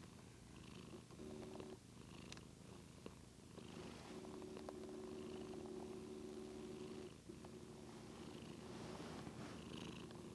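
Domestic cat purring close up, a low steady purr that dips briefly with each breath, in long stretches of a couple of seconds or more.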